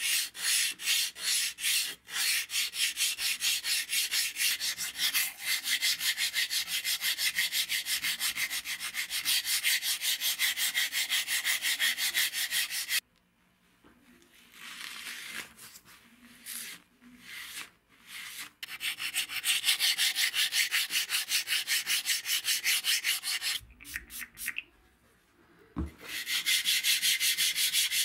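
Abrasive paper rubbed by hand over the steel blade of a straight razor in quick, even back-and-forth strokes. The strokes stop about halfway for a few seconds of softer, irregular wiping with a cloth, then resume, pause again near the end, and start once more.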